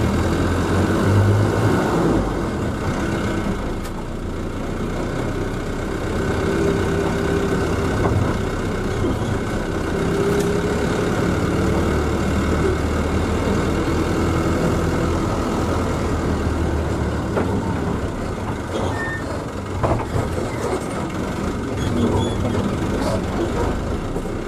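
Mitsubishi-chassis minibus's diesel engine running and its tyres on the road, heard from inside the cabin while the bus is under way.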